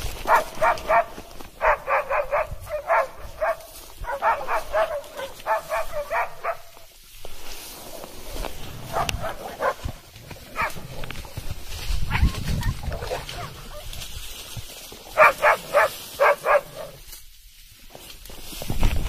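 Hunting dog barking in quick runs of several barks, with pauses of a few seconds between runs.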